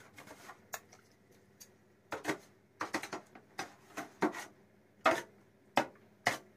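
Metal spoon scraping and knocking against an aluminium foil tray as cubes of set jelly are worked out of it into a bowl of custard: about a dozen short, irregular scrapes and taps, most of them in the second half.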